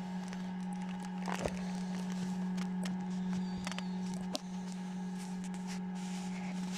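Egg incubator's fan running with a steady hum, with a few short clicks and a brief high peep about halfway through, as from a hatching Chinese painted quail chick.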